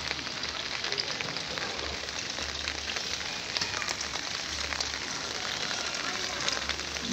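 Steady rain falling on a wet tiled courtyard and puddles: a dense, even hiss full of small drop ticks and splashes. Under it, a low rumble comes and goes every second or two.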